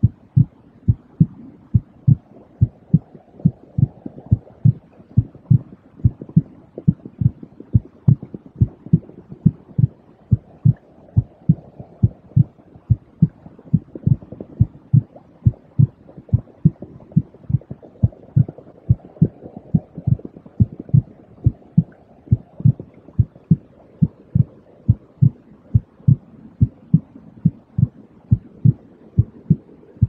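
A recorded heartbeat with a steady, even run of low thumps, about two to three a second, over a soft, low rushing noise that swells and fades slowly every several seconds.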